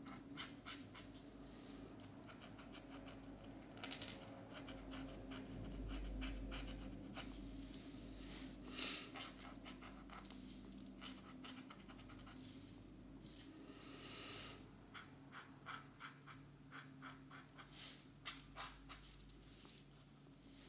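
Felt-tip markers scratching on paper in quick back-and-forth colouring strokes, coming in short runs with brief pauses between them; faint.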